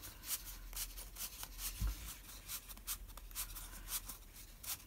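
Cardstock rustling and scraping as the paper wheel of a spinning wheel card is turned by hand: a string of light, scratchy ticks, with one soft low thump about two seconds in.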